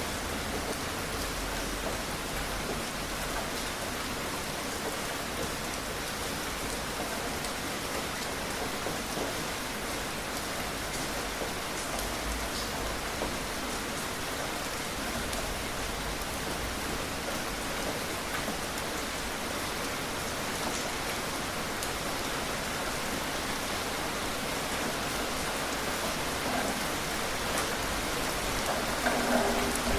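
Steady rain falling and pattering on a surface, an even hiss with a few faint drop ticks and a slight swell near the end.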